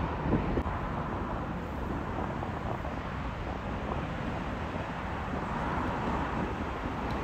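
Steady, even rumble of a twin-engine jet airliner, a Boeing 787, on final approach, with wind buffeting the microphone.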